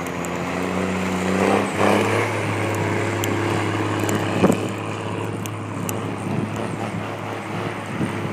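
M35A2 army truck's multifuel diesel engine pulling, its pitch rising for almost two seconds, then breaking off and settling into steady running. A single sharp knock about four and a half seconds in.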